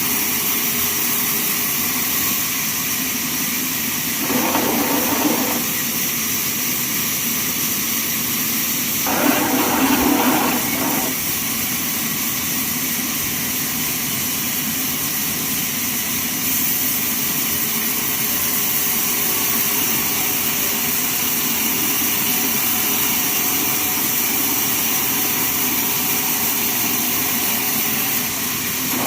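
Band sawmill running with a steady mechanical drone, with two short louder bursts, about four seconds in and again about nine seconds in.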